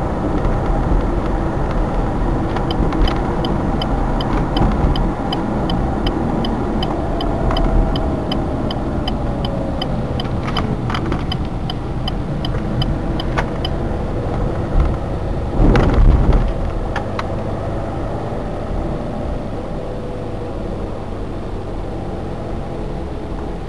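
Car engine and road noise heard inside the cabin, with the turn-signal relay ticking steadily at about three clicks a second for roughly ten seconds while the car turns at a junction. A single thump comes about sixteen seconds in.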